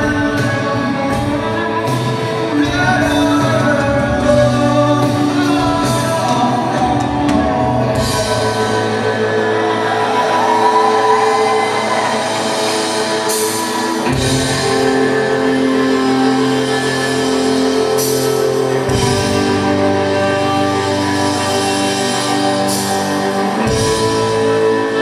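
Live rock band playing over a PA: electric guitars, a drum kit and a sung vocal line.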